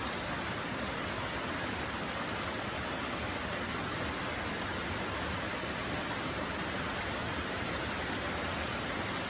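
Heavy rain coming down hard in a steady, even hiss.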